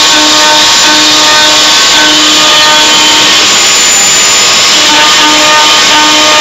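Home-built CNC machine's spindle motor running loud and steady with a high whine as its bit drills holes into a wooden beam. A lower tone comes and goes about once a second.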